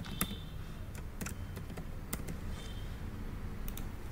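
Computer keyboard being typed on: separate keystrokes clicking irregularly, a few a second, over a faint low hum.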